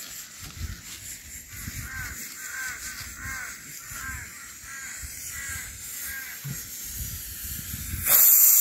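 Repeated short animal calls, about two a second, through the middle. About eight seconds in, the pressure cooker of dal on the open wood fire suddenly starts hissing loudly as it lets off steam.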